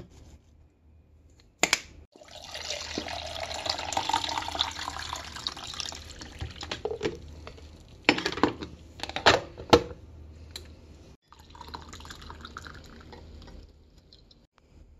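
Liquid pouring and splashing at a Mr. Coffee drip coffee maker, with a few sharp knocks and clicks partway through, then a quieter pour of coffee from the glass carafe into a ceramic mug.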